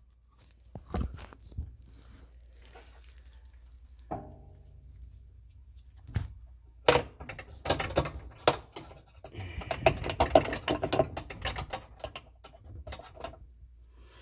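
Plastic dishwasher float and filter parts being handled and screwed back together by hand: scattered clicks and knocks, a brief squeak about four seconds in, then a stretch of scraping and rattling.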